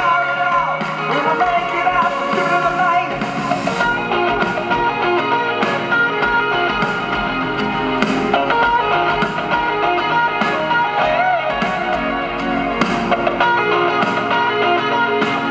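Rock music with guitar and singing over a steady beat.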